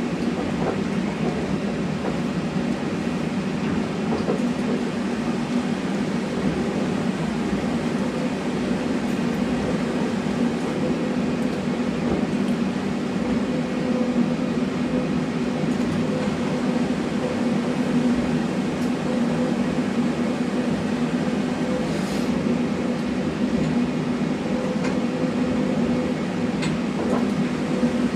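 Cabin running noise of an airport people mover (Pearson's LINK Train) cruising along its elevated guideway. It is a steady hum and rumble that holds even throughout, with a faint click about two-thirds of the way through.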